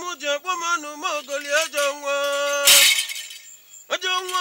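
A voice chanting an incantation in sing-song, holding long notes that bend up and down. A single sharp crash cuts in a little under three seconds in.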